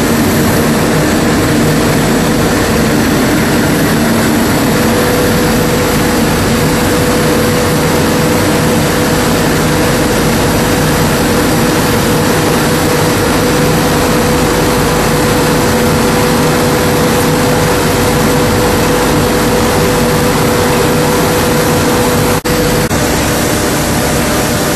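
Plastic recycling and pelletizing line running: a loud, steady mechanical din of electric motors and machinery, with a steady whine that comes in about five seconds in and stops at a brief break near the end.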